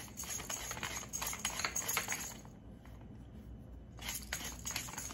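Pepper being freshly ground into a blender cup: a run of fine, crunchy clicks, a pause of about a second and a half, then more clicks near the end.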